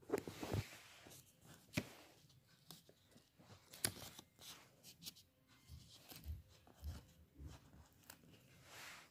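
Notebook paper and paper cutouts being handled: rustling and crinkling, with a few sharp clicks along the way.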